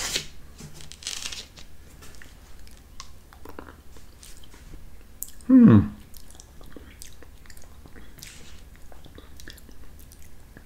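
Close-miked mouth sounds of a man eating a spoonful of creamy yogurt: small wet clicks and smacks of lips and tongue scattered throughout. About five and a half seconds in comes a short vocal "mm" that falls in pitch.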